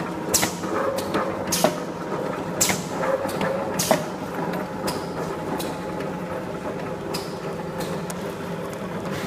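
Milk powder can filling and sealing machinery running: a steady motor hum with sharp metallic clacks about once a second in the first four seconds, then fainter and sparser.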